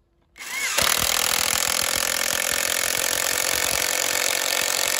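Makita cordless brushless impact wrench driving a 6–7 cm self-drilling roofing screw into a wooden block. The motor whirs up briefly, then its impact mechanism starts hammering automatically under the load and keeps hammering steadily as the screw goes in.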